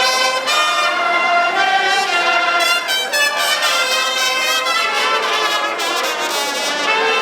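Brass music: horns playing sustained notes together in harmony.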